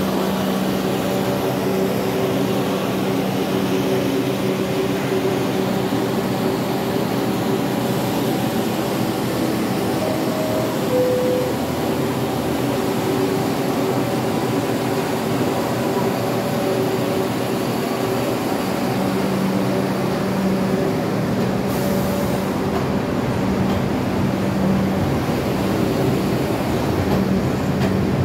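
An R62 New York subway train standing at the platform: a steady mechanical hum with several held tones over a constant rushing noise.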